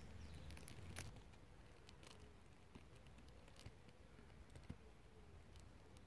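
Light rain: faint, scattered raindrops tapping irregularly on wet garden leaves, a few separate drops at a time.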